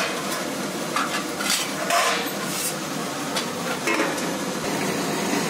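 Whole spices (bay leaves, cardamom, peppercorns, cinnamon sticks) sizzling and crackling in hot oil in an aluminium pot. Just before four seconds in, a steel plate clanks onto the pot as a cover against spattering spices.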